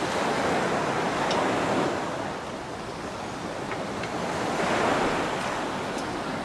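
Waves washing in a steady rushing hiss that swells and eases twice, with a few faint light clicks.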